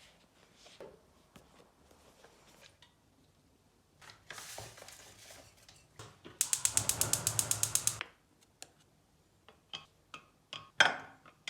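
A rustle, then a quick, even run of sharp mechanical clicks, about nine a second for a second and a half, followed by a few scattered clicks and knocks.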